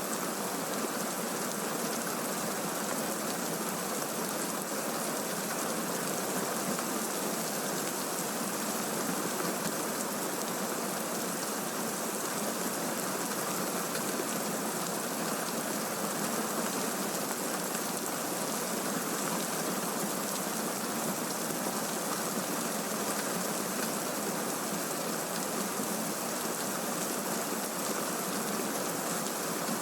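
Recorded rain falling steadily, an even hiss of rainfall with no thunderclap or rumble in this stretch.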